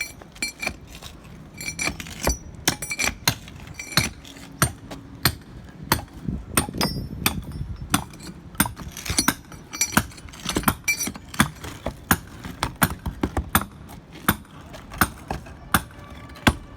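Hammer striking a steel chisel again and again, sharp metallic blows about two to three a second, some with a short ring, chipping out cracked, water-damaged concrete that is breaking loose.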